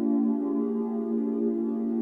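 Background ambient music: steady held synthesizer-like chords.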